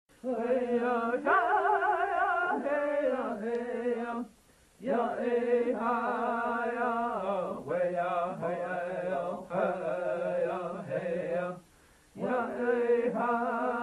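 A single voice chanting without accompaniment, in long held phrases with a wavering pitch, broken by two short pauses for breath.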